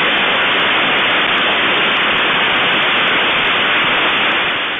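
Loud, steady hiss of a fan-shaped 'peacock' fountain firework spraying sparks, heard through a home security camera's microphone, with faint rapid crackles over it.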